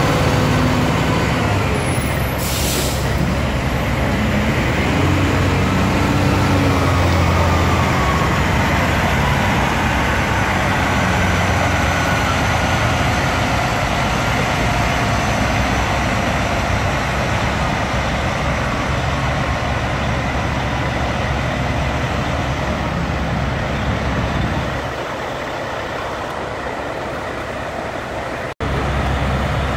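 Heavy truck engines running steadily, with a short, sharp hiss of air about two and a half seconds in, like an air brake releasing. The sound gets quieter about 25 seconds in and cuts out for a moment near the end.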